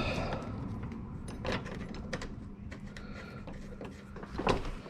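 Scattered light metallic clicks and knocks as bolts are started by hand into a sump protection plate, with one louder knock near the end, over a faint steady hum.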